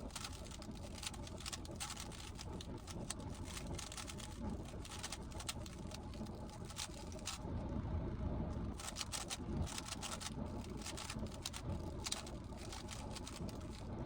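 Rapid plastic clicking of a GAN15 speedcube being turned, many quick turns in a row, over a steady low background rumble.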